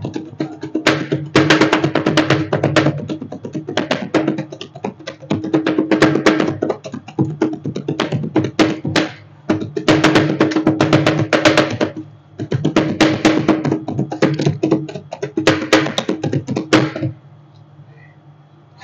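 Metal spatulas clattering rapidly and rhythmically on the steel cold plate of a rolled-ice-cream counter, in bursts of a couple of seconds with short breaks, stopping suddenly near the end. A steady low machine hum runs underneath.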